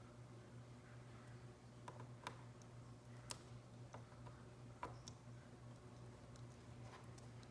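Faint scattered clicks and taps from small plastic calculator parts being handled during disassembly, over a steady low hum.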